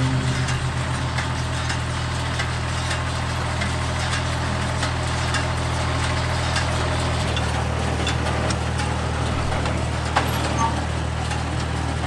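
Vintage farm tractor engine running steadily while it pulls and powers a small square hay baler. About seven seconds in, the engine note drops lower.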